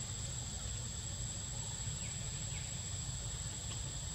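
Steady high-pitched drone of insects in the surrounding vegetation, over a steady low rumble, with two faint short chirps about two seconds in.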